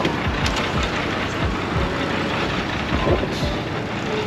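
Bus engine running with road and street-traffic noise, a steady rumble.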